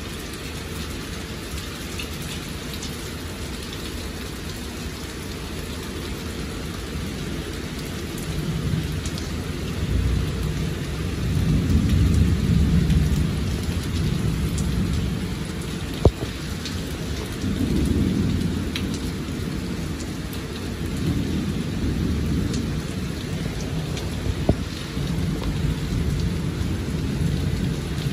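Heavy rain pouring steadily during a thunderstorm, with thunder rumbling in several long low rolls from about a third of the way in. Two sharp ticks stand out, one just past halfway and one later.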